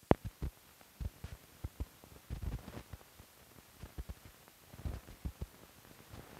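Crackle and pops from an old film soundtrack: irregular short clicks over a faint steady hiss, with one sharp pop right at the start.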